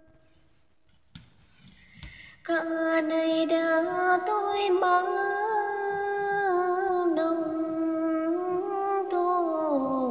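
A woman singing a Tay phong slu folk song unaccompanied. After a near-quiet pause of about two and a half seconds she takes up a long, slowly held melodic line with small gliding ornaments, dropping lower in pitch near the end.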